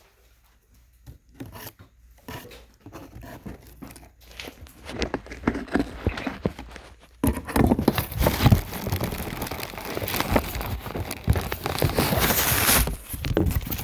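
A package being opened by hand: scattered small clicks and rustles at first, then from about halfway a loud, continuous rustling and tearing of the packaging.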